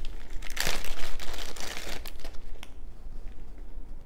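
Plastic bag crinkling with small clicks as a corded necklace is pulled out and handled. It is loudest in the first two seconds and fainter after that.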